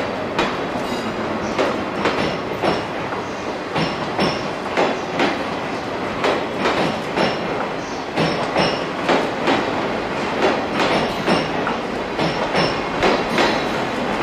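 Steel wheels of 24 series sleeper coaches clacking over rail joints and points as the train rolls past, the clicks coming closer together in the second half, over a steady rumble with faint brief high squeals.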